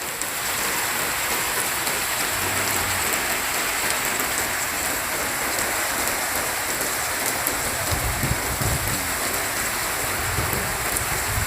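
Heavy rain pouring down in a steady, dense hiss, with a low rumble coming in twice near the end.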